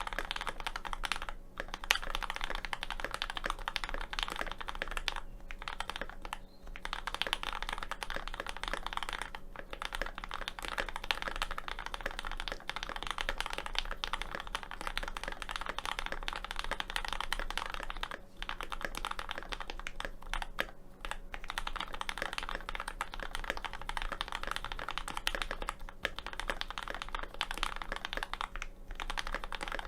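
Steady, fast typing on a GMMK Pro mechanical keyboard fitted with lubed and filmed Kinetic Labs Hippo switches, GMK Dracula keycaps, an aluminium plate and a tape mod, broken by a few brief pauses.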